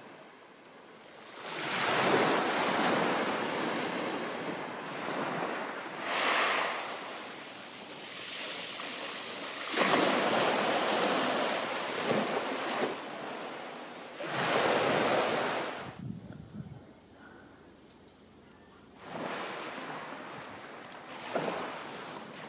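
Sea waves breaking and washing up on a black volcanic pebble beach, in about five surges that swell and fade, with a quieter lull in the second half.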